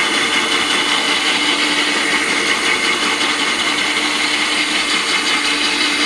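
Cordless DeWalt 18V drill running steadily with a hole saw grinding into sheet glass, water in the cut keeping the glass cool.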